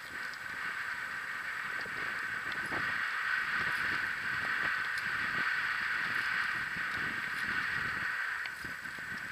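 Steady rushing noise of riding along a paved bike path, picked up by a camera mounted on a following bicycle: wind on the microphone and rolling noise, with uneven low buffeting.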